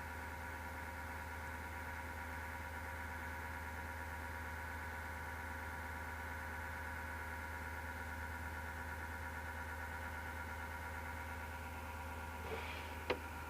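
Desktop PC power-supply fan running with a steady whirring hum made of several held tones, the noise of a failing fan, which the owner describes as a low grinding. A brief scrape and one sharp click come near the end.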